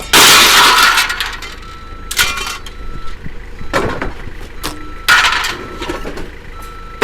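Scrap metal being unloaded and thrown onto a pile: a loud crashing clatter at the start lasting about a second, then several separate metallic clanks.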